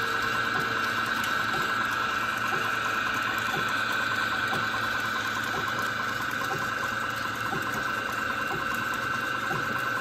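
Antique belt-driven line-shaft transmission running steadily, flat belts turning over cast-iron pulleys: a constant high whine over a low hum, with a regular light ticking.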